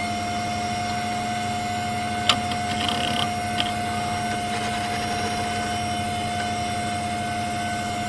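Old desktop computer running, its fan and hard drive giving a steady whine over a low hum, with a few faint clicks a couple of seconds in.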